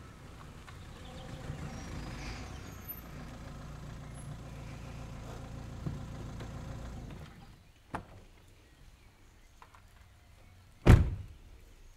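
A car engine idling, switched off about seven seconds in. A click follows a second later, then a car door slams shut near the end, the loudest sound.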